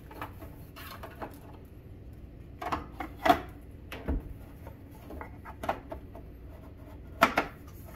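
Handling noise from an air purifier's plastic housing being turned over and pressed on a wooden table: a handful of irregular knocks and clunks, the loudest about three seconds in, with light rubbing between.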